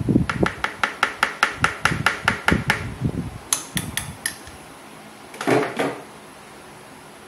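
Stainless-steel mesh sieve tapped rhythmically to sift powder through it, about five quick metallic taps a second for nearly three seconds. A few sharper clicks follow, then a short clatter near the end.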